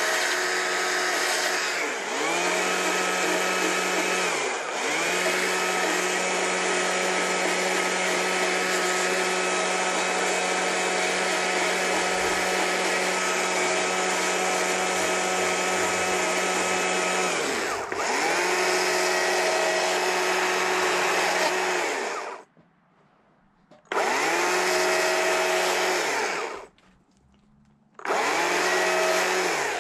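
Stihl two-stroke chainsaw running at full throttle while carving into a small log. The engine note dips and climbs back up a few times, and the sound drops out twice for a second or so near the end.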